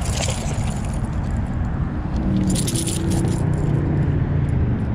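A hooked largemouth bass splashing and thrashing in the shallows as it is landed. There is a short splashy rattle at the start and another rattling clatter about two and a half seconds in, over a steady low rumble.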